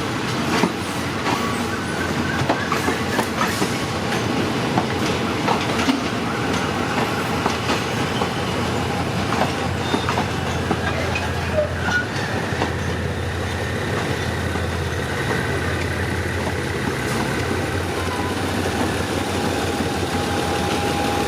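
Diesel-hauled passenger train rolling slowly through station trackwork, its wheels clacking irregularly over rail joints and points over a steady low locomotive engine hum, with faint wheel squeal later on.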